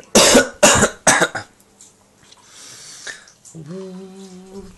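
A person coughing three times in quick succession, then near the end a voice humming one steady held note.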